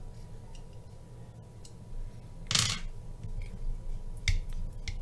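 Handling noise from a titanium folding knife being reassembled: a short scrape about halfway through, then a few sharp, light metal clicks near the end.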